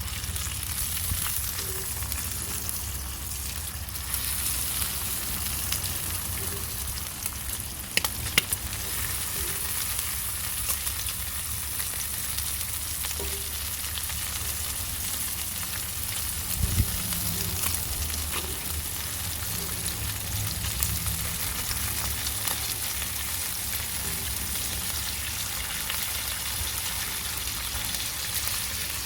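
Bacon and peppers with onions frying in oil: a steady sizzle, with a low hum underneath. A few sharp clicks of a utensil come about 8 seconds in, and a knock about halfway through.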